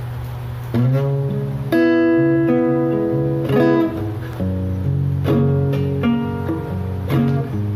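Instrumental music: a guitar playing chords that ring out, a new chord struck about every second.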